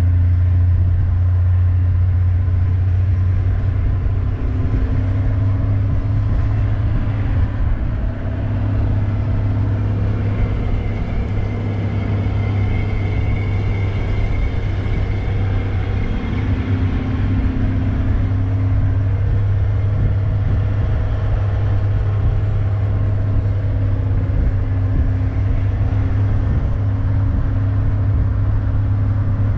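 Game-drive vehicle driving along, its engine and running gear a steady low drone.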